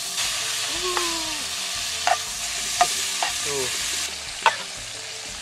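Pieces of spotted dove meat sizzling in hot oil in a frying pan, a steady hiss that eases a little about four seconds in. A few short knocks are heard along with it.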